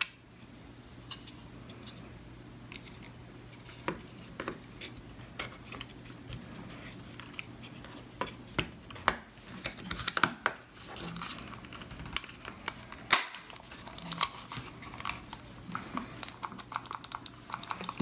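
Scattered light plastic clicks and taps as the top cover of a Yaesu MH-48 hand microphone is fitted back onto its case and pressed into place, with a low steady hum underneath.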